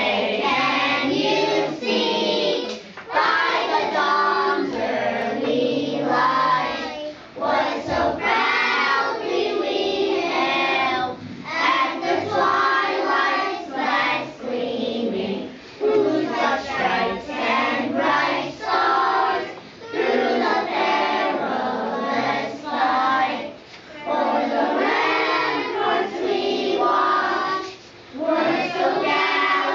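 A kindergarten class of young children singing together in unison, phrase after phrase, with short breaks between phrases.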